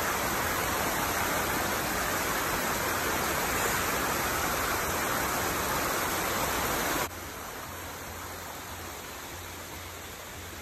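Steady rush of a small mountain stream tumbling over rocks in little cascades. The rush drops suddenly to a quieter level about seven seconds in.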